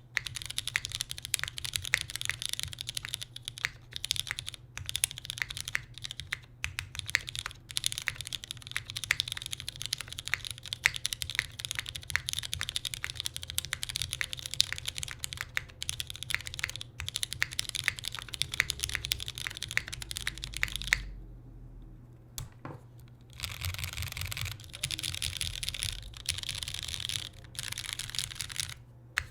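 Typing on a mechanical keyboard with lubed vintage West German Cherry MX Black linear switches on an aluminium full plate, with GMK doubleshot ABS keycaps: a steady stream of key clacks. The keys stop for about two seconds past the two-thirds mark, then many keys are spammed in a fast, continuous clatter.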